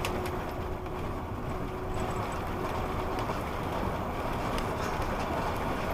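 Steady engine and road rumble inside an old bus cruising along the highway, with a faint steady whine that fades out about halfway through.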